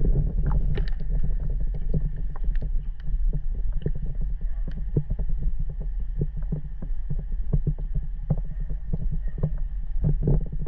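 Water lapping and gurgling against a GoPro's waterproof housing held half-submerged at the surface of a spring pool, heard muffled through the case: a steady low rumble with many small clicks and pops.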